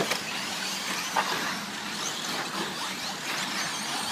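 Radio-controlled short-course trucks running laps on a dirt track: a steady mix of motor whine rising and falling and tyre noise, with a sharp knock about a second in.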